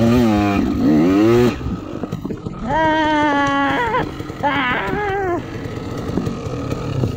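Enduro dirt bike engine revving, its pitch rising and falling with the throttle. It drops away about a second and a half in, then two shorter revs follow.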